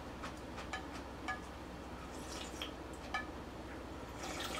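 Utensils clinking lightly against dishes: five or six small clinks, each with a brief ring, with short wet eating sounds between them and near the end.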